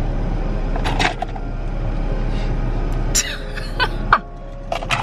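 A woman laughing inside a car about three seconds in, over the steady hum of the car.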